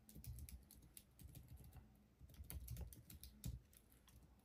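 Faint typing on a computer keyboard: quick, irregular keystrokes.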